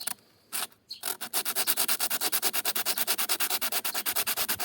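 A bicycle disc brake pad rubbed rapidly back and forth on sandpaper, a fast even scraping after a few brief strokes in the first second. The pad is being sanded down to clean material to remove an oil-contaminated surface layer that makes the brake squeal.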